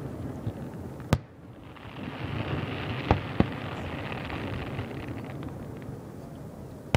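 Aerial firework shells bursting: a sharp bang about a second in, two more close together around three seconds in, and another at the very end, with a continuous rumble and crackle between.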